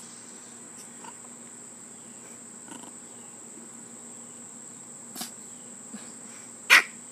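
Crickets chirring steadily and high-pitched. Near the end the Pomchi gives a short, sharp bark, the loudest sound here, after a smaller yap a second and a half before; she barks because the petting has stopped.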